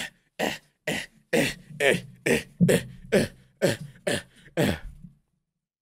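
A rhythmic run of about eleven short, sharp vocal bursts, roughly two a second, each dropping in pitch, with a low hum beneath in the middle; it stops about five seconds in.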